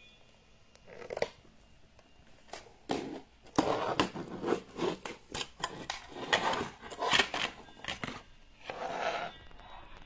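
Plastic dust bin of a Bagotte robot vacuum being unclipped, pulled out of its bay and handled. About a second in, a run of irregular clicks, scrapes and rattles of plastic on plastic begins.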